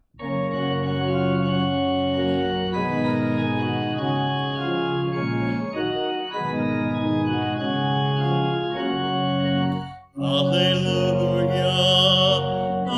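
Church organ playing sustained chords as the introduction to the Gospel acclamation. After a brief break about ten seconds in, it resumes under a solo voice beginning to sing.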